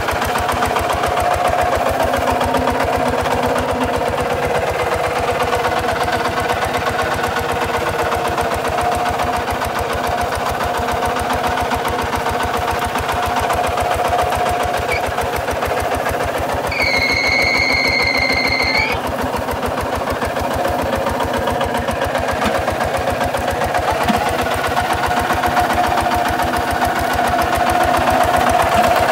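Single-cylinder diesel engine of a Kubota RT 140 DI walk-behind tractor running steadily under load as it pulls a plough through dry soil. About two-thirds of the way in, a high whistle-like tone sounds over it for about two seconds.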